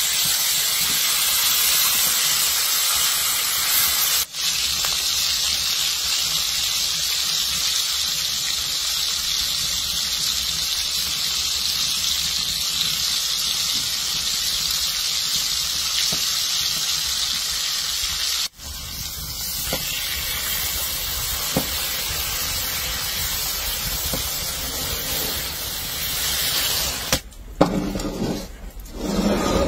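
Bone-in beef shanks searing in a hot cast-iron skillet: a steady sizzling hiss, briefly cut off twice, about four and eighteen seconds in. Near the end the sizzle drops away and a few uneven knocks are heard.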